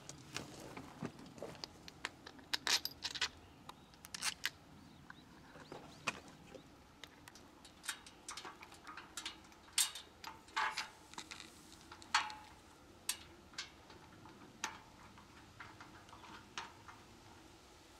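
Irregular light clicks and clinks of Smith machine parts being handled during assembly, a couple of dozen scattered sharp ticks with no steady rhythm.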